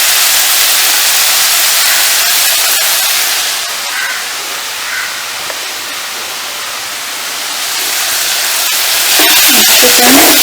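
Chopped onions and ginger sizzling in hot oil in a pan, a steady frying hiss that eases off in the middle and grows louder again near the end.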